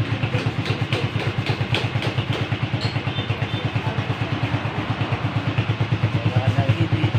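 Racal 150 enduro motorcycle's single-cylinder engine idling steadily, with an even, quick exhaust pulse.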